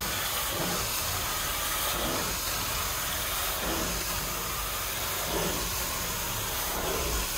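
Carpet-cleaning extraction wand under truck-mounted vacuum, pulled across wool-look loop carpet: a steady loud rushing hiss of air and water being sucked up through the wand and hose.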